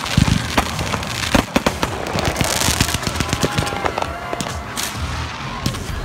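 Aerial fireworks going off: a rapid, irregular series of sharp bangs mixed with crackling bursts.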